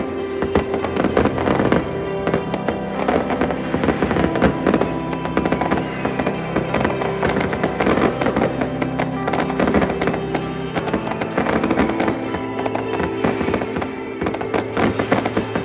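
New Year fireworks going off in a dense, continuous run of crackles and pops, with music playing along with them.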